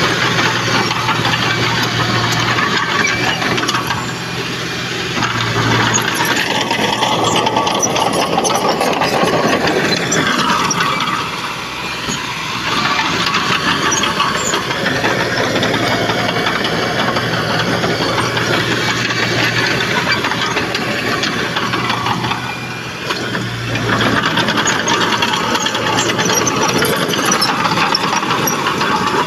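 Crawler bulldozer's diesel engine working under load, its sound swelling and easing off every few seconds, with clanking and rattling from the machine on top.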